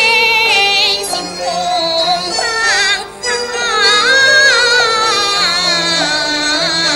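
A woman singing a slow, ornamented Teochew opera melody in a high voice with wavering vibrato, over traditional instrumental accompaniment; the singing breaks off briefly about three seconds in.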